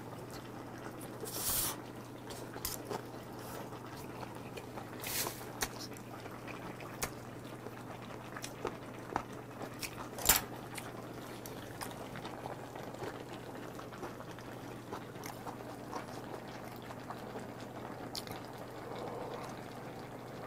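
Close-up eating sounds: a man sucking and chewing meat off pork bones from gamjatang, with short slurps about 1.5 and 5 seconds in, small clicks of chopsticks, and one sharp clink of utensils about 10 seconds in. Near the end he sips hot broth from a wooden spoon, over a steady low hum.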